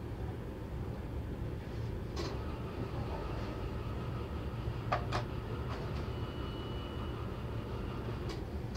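Steady low room rumble in a hospital room, with a few small clicks and knocks from handling, and a faint, brief high tone a little past the middle.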